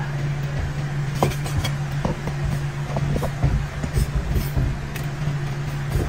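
Cleaver knocking on a thick round wooden chopping block while chicken gizzards are sliced: a string of irregular sharp chops. Under them runs a steady low hum.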